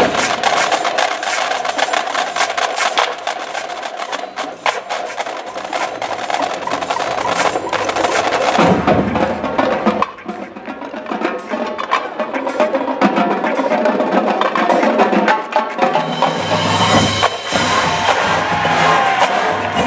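High school marching band playing its competition show. For the first eight seconds or so, fast, sharp percussion clicks run over a held chord; about nine seconds in, the fuller band with low brass and drums comes in.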